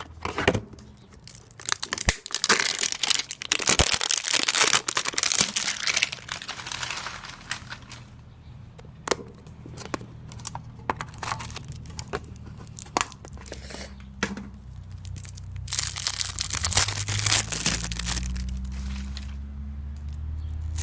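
Trading-card pack wrapping being torn open and crinkled by hand, in two spells of crinkling about five seconds apart with scattered clicks and rustles between.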